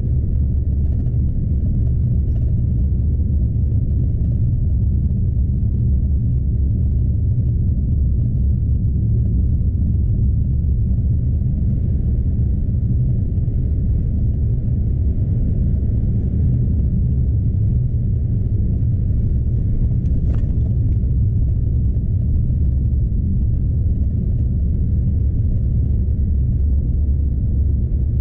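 Scania truck's diesel engine and rolling noise heard from inside the cab while driving: a steady low drone with no change in pace.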